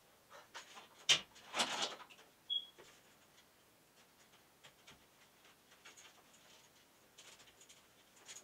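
Small handling sounds of grow-light strip cords being arranged on a metal and glass shelf: scattered clicks and light rustling, with a sharp click about a second in, a longer rustle right after it, and a brief high squeak.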